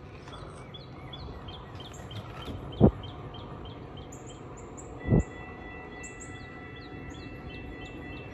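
Small birds chirping, quick short chirps repeated two or three times a second, over a steady outdoor background. Two short dull thumps, the loudest sounds, come about three and five seconds in, and a thin steady high tone starts about halfway through.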